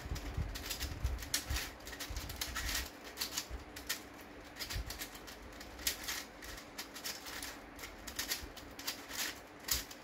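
A 3D-printed 2x2x14 cuboid twisty puzzle being turned by hand: its plastic layers clicking and clacking in quick, irregular runs.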